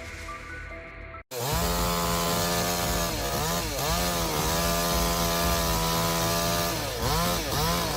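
Brief music, then after a sudden cut about a second in, a two-stroke chainsaw runs at high revs. Its pitch dips and recovers three times.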